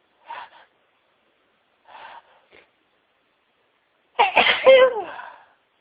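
Two short, quieter breaths, then a loud sneeze about four seconds in, its voiced part falling in pitch as it trails off.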